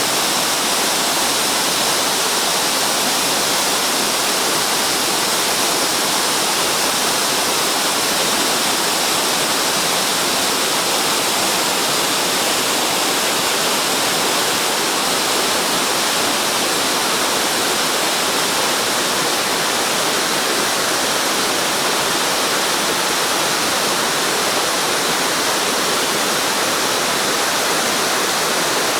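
A waterfall, its falling water making a steady, unbroken rush that is strongest in the upper range.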